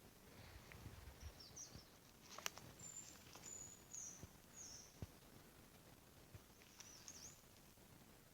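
Faint high-pitched bird calls: a few short, thin whistled notes, in a brief run in the middle and again near the end, over quiet forest hush. Two sharp clicks stand out, one a little before the middle and one just after.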